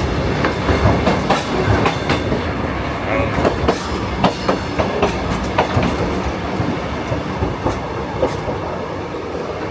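Kuranda Scenic Railway train heard from on board: a steady rumble of the carriages, with frequent irregular clicks and knocks of the wheels passing over rail joints. It eases off a little toward the end.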